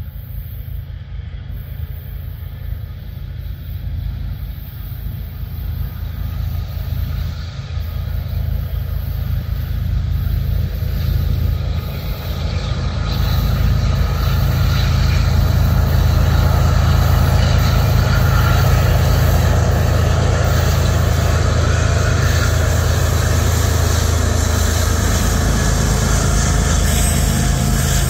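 Diesel locomotives of a double-stack freight train approaching: a low engine drone grows steadily louder over the first half, then holds loud and steady as the train runs by.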